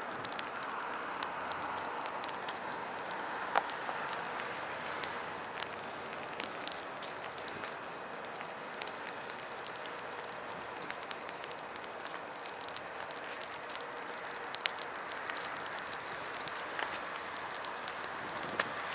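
Dry grass burning, with many sharp crackles and pops over a steady hiss.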